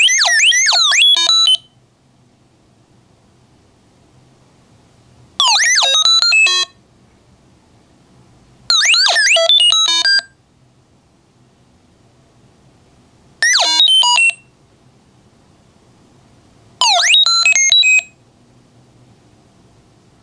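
Arduino Uno playing R2-D2-style robot chirps through a small 8-ohm toy speaker, its tones generated as a square wave. Five bursts of about a second each: a flurry of quick rising and falling whistles ending in a run of short stepped beeps. The bursts are separated by pauses of two to four seconds.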